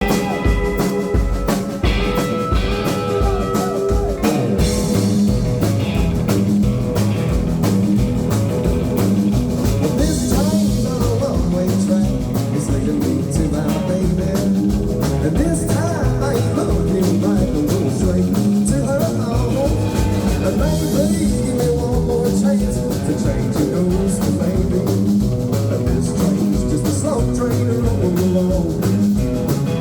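A live rock and roll band playing an upbeat number with a steady, driving beat.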